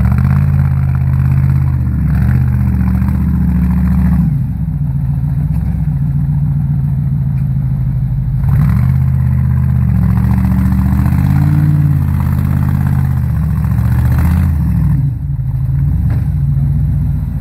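Fuel-injected 5.7-litre V8 of an offroad crawler on big mud tyres, working under load through deep mud, the revs rising and falling. It is louder for the first four seconds, eases off, then pulls hard again from about eight seconds to fourteen before dropping back.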